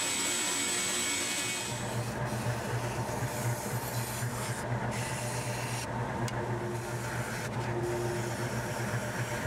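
Spindle sander running with a steady low hum while a pine paddle blank is pressed against its sanding drum, the rasp of the sanding coming and going as the edge is worked. A steady machine hiss fills about the first two seconds before the sanding starts.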